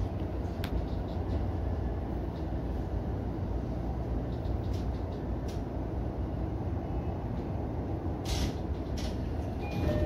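Steady low rumble inside the cab of a JR E231-series electric commuter train standing at a station platform, with a few faint clicks and a short hiss about eight seconds in.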